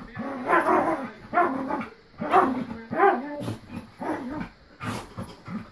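Dog barking in a run of short, pitched calls, about one every three-quarters of a second, while play-fighting with a person.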